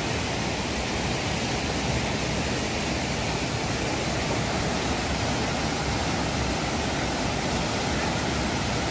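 Steady rush of white water from a small waterfall cascading over boulders in a rocky river.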